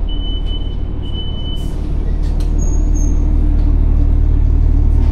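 A big diesel train's engine idling at the platform, a steady low rumble that grows a little louder about two seconds in. Two high-pitched beeps sound in the first two seconds.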